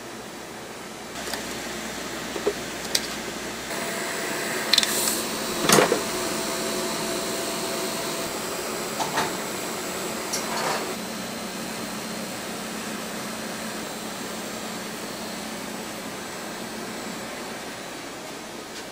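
Electric cotton candy machine running with a steady whir from its spinning head while cotton candy is wound onto a wooden stick. A few sharp knocks and clicks come in the first eleven seconds, the loudest about six seconds in.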